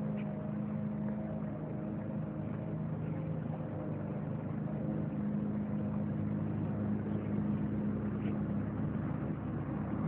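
A machine running steadily, giving a low, even hum that does not change.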